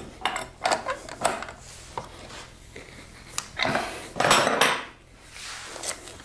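Metal wrenches clinking and knocking against the wooden lathe frame and bench as they are handled and set down, with several separate sharp clinks and two louder scraping noises a little past the middle. The work is refastening the axle lock nut that had let the cylinder freewheel.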